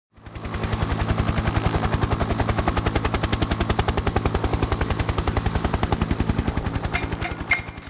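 A rapid, even chopping pulse, about a dozen beats a second, over a low steady hum, fading in at the start. Bright mallet notes come in near the end.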